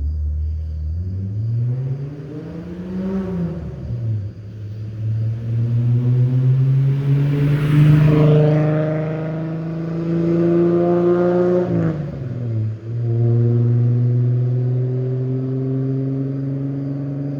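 1985 Toyota Cressida engine through OBX headers, stock catalytic converter and 2.5-inch exhaust pipe, accelerating through the gears. The engine note climbs, drops at an upshift about 3 seconds in, climbs steadily for several seconds, then drops again at another shift near 12 seconds and starts climbing once more.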